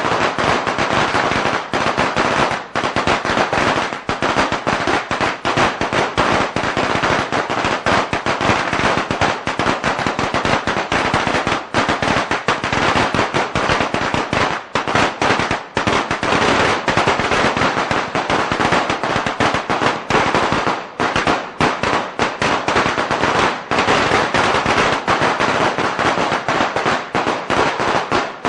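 A long string of Chinese firecrackers (biānpào) going off in a dense, rapid crackle of bangs without a pause.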